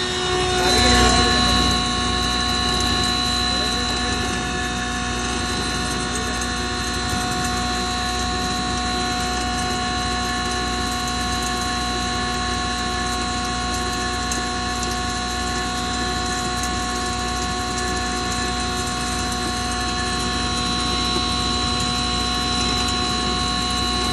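Double-chamber grinding machine running steadily, a loud hum with several steady whining tones; it swells briefly about a second in.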